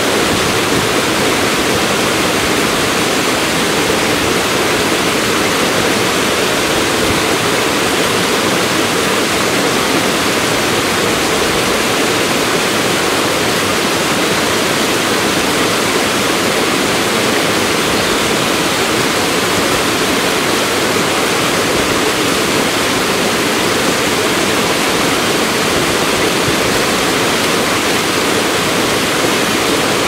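Small waterfall pouring over rocks into a shallow pool: a loud, steady, unbroken rush of falling water.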